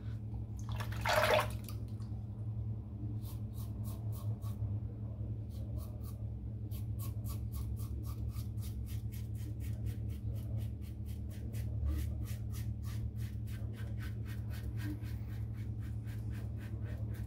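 Stainless steel Karve Christopher Bradley safety razor shaving two days' stubble: a rapid run of short, crisp scraping strokes, about four or five a second, from about three seconds in. A short hiss about a second in, over a steady low hum.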